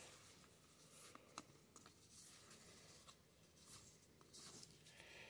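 Faint, soft rustling of baseball cards sliding against one another as a stack is flipped through by hand, with a few light clicks as card edges catch.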